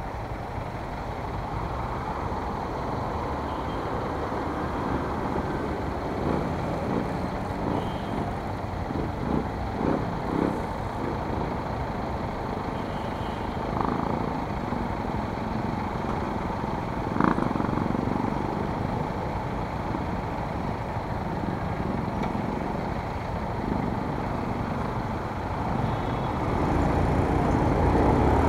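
Road traffic at a city intersection heard from a stopped motorcycle, with the bike's engine idling under the steady rumble of passing vehicles and a short sharp sound about seventeen seconds in. The noise rises near the end as the motorcycle pulls away.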